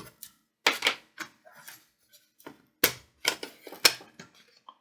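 Irregular sharp clicks and clacks of a plastic laptop case and its parts being handled and set down, with the loudest knocks a little under three seconds in and about a second later.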